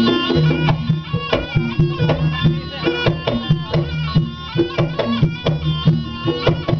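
Live Javanese kuda kepang (jaranan) dance music: drums beating a steady, brisk rhythm under a high melody line with sliding notes.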